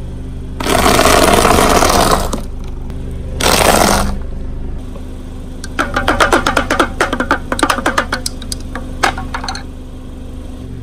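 Car engine running steadily while its tyre rolls onto and crushes something brittle: two loud crunching rushes in the first four seconds, then a quick run of sharp cracks and crackles from about six to nine and a half seconds in.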